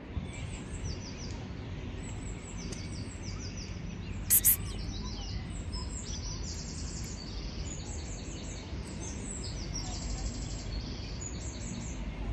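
Outdoor ambience: a steady low background rumble with repeated trains of rapid, high-pitched chirping throughout. About four seconds in comes a brief, sharp double noise, the loudest sound here.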